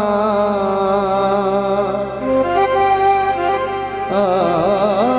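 A man singing a long, wavering melismatic line over a harmonium. About two seconds in the voice drops out and the harmonium holds steady chords alone, then the wavering voice comes back near the end.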